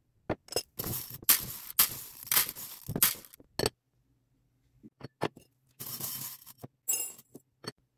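Small plastic beads rattling and clicking against a glass bowl as a hand digs through them. There are two longer bouts, the first lasting over two seconds and the second shorter, with single clicks between them and a short ringing glassy clink near the end.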